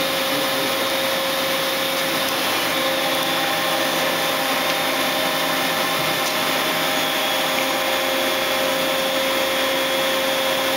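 Daewoo DNB-130R CNC horizontal boring mill running as its headstock travels up the column: a steady mechanical hum with a constant whine that holds the same level throughout.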